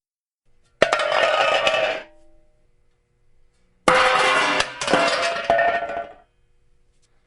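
Metal pots and pans falling and clattering, with metallic ringing. There is one crash about a second in, and a longer, jangling one about four seconds in with two more hits inside it.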